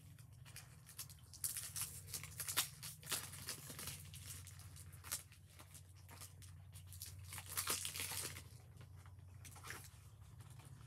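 Packaging being torn and crinkled by hand in irregular short rips and rustles, with a few louder rips early on and near the middle. A steady low hum runs underneath.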